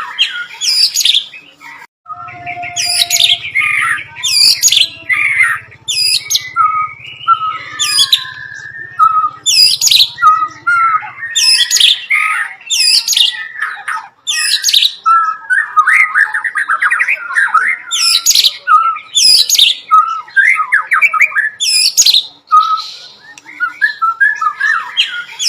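White-rumped shama singing a loud, varied song that includes mimicked bar-winged prinia calls: sharp high notes sweeping downward every second or so, mixed with fast chattering and rattling phrases.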